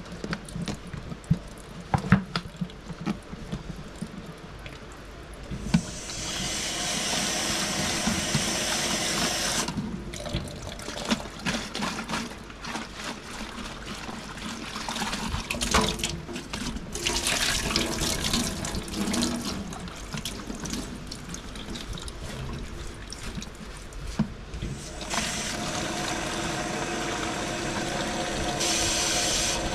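Water running or pouring in stretches of a few seconds each, with scattered clicks and knocks of things being handled in between.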